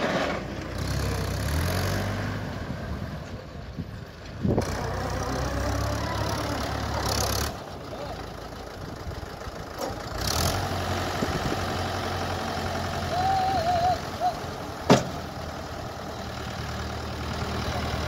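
Diesel tractor engine running steadily at low speed, with one sharp knock about fifteen seconds in.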